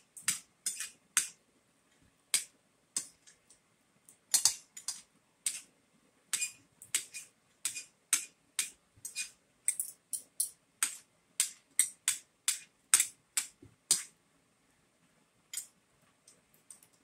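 Eating at close range: a run of short, sharp clicks and clinks, at times about two a second, from a metal spoon and fork on a ceramic bowl and the chewing of food.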